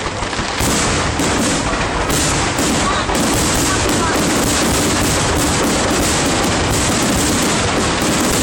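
Fireworks crackling and popping in a dense, continuous rattle of rapid reports.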